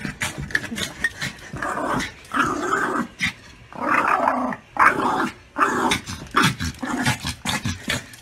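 Small dog growling in a series of short bursts, each about half a second long, with sharp clicks in between.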